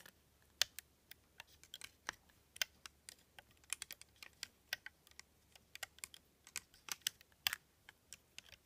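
Rainbow Loom hook clicking against the clear plastic pegs as rubber bands are looped along the loom: quick, irregular light clicks, several a second.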